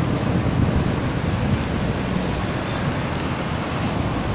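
Steady wind rushing over a phone's microphone as a cyclist rides along, a dense low rumble with no clear tones.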